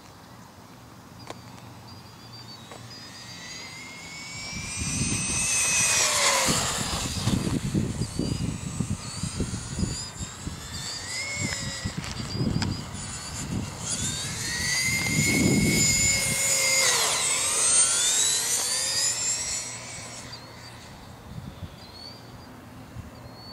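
Traxxas Mini Revo RC truck with a Mamba Max 5700kv brushless motor making two high-speed passes. Each time its high whine climbs as it accelerates, then drops sharply in pitch as it goes by, about six and seventeen seconds in.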